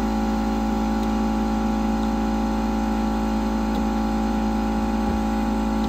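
Steady electrical hum from running workshop equipment, holding several fixed tones at an even level, with a couple of faint small clicks.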